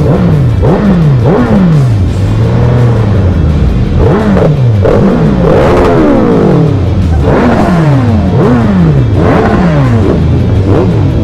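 Superbike engines, the nearest a Suzuki Hayabusa, revved in quick throttle blips, roughly one a second, each rising and falling in pitch, with one longer held rev a couple of seconds in.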